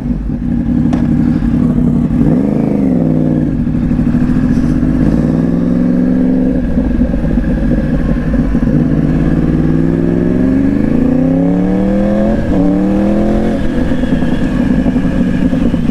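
Yamaha R1 sport bike's inline-four engine pulling away and accelerating. Its pitch climbs and drops back several times as it shifts up through the gears, then holds steady near the end.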